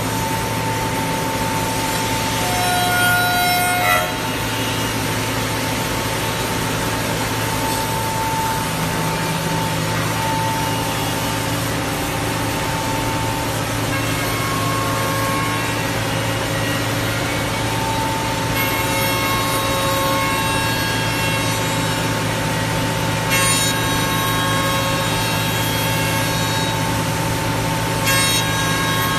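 5-axis CNC router spindle running with its cutter machining a curved wooden workpiece: a steady whine over a low hum, with brief louder moments of cutting about four seconds in and twice near the end.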